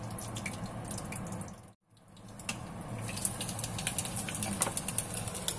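Hard-boiled eggs frying in hot oil in a saucepan: a steady sizzle with scattered crackles and pops. The sound cuts out for a moment about two seconds in, then comes back with louder, denser crackling.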